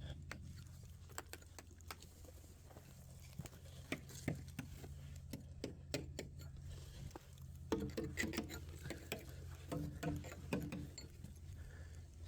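Irregular light tapping on exterior siding boards, sounding them for hidden damage, over a steady low hum.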